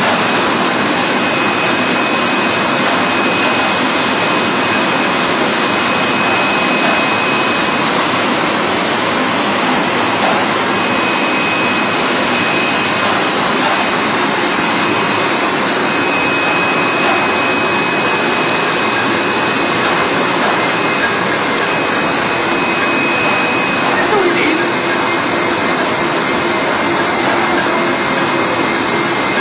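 Chocolate-biscuit depositor line with biscuit feeder and press running, a loud steady machine noise with a thin high whine that comes and goes.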